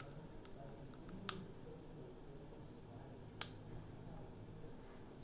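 A few faint, sharp clicks from fingers and mouth as dental composite is pressed onto a chipped front tooth; the loudest comes about three and a half seconds in.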